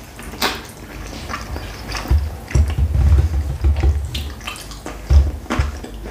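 Close-miked eating of a khinkali dumpling: wet mouth smacks, sucking and chewing sounds, with a few sharp clicks and dull low thuds around the middle.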